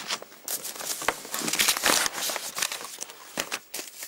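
Papers and logbook pages rustling and crinkling as they are handled, a busy run of small crackles that thins out near the end.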